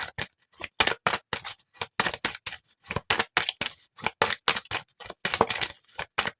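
A tarot deck being shuffled by hand: a run of short, sharp card clicks, about three or four a second.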